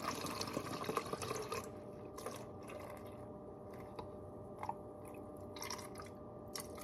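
Clove-infused water pouring through a funnel into a plastic bottle: a steady trickle for about the first second and a half, then scattered drips as the funnel drains.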